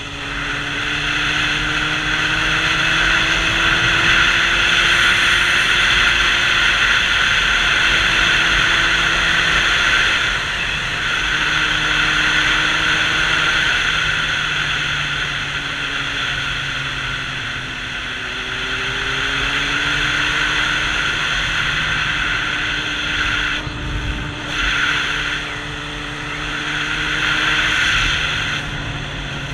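Sport motorcycle engine running at road speed under a steady rush of wind on the helmet-mounted microphone. The engine note slowly rises and falls with the throttle, dipping and climbing again a little past halfway.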